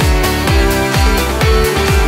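Electronic background music with a steady kick drum, about two beats a second, under held notes.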